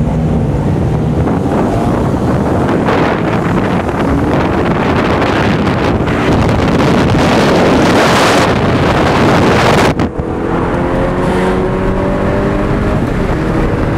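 Car engines and exhausts revving and driving past, building to a loud pass-by about eight to nine seconds in. After an abrupt cut comes a steady engine drone heard from inside a car's cabin.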